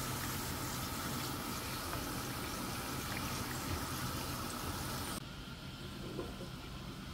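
Dill-leaf pakoras deep-frying in hot oil, a steady sizzle that cuts off suddenly about five seconds in, leaving a quieter kitchen background.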